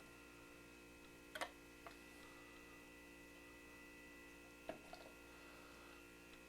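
A few light clicks of metal canning lids and screw bands being set onto glass quart jars: a pair about a second and a half in, another just after, and two more near the end. Under them a faint steady hum.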